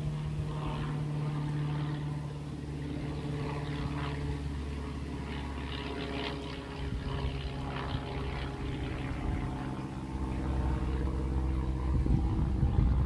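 A steady low engine drone, a hum with its overtones, that shifts slightly in pitch about halfway through and grows a little louder near the end.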